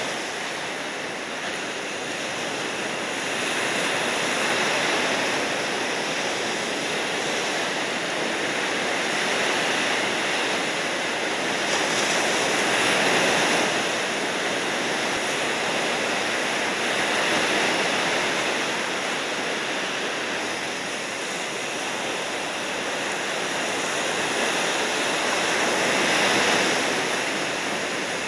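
Ocean surf: a continuous wash of breaking waves, swelling and easing every few seconds.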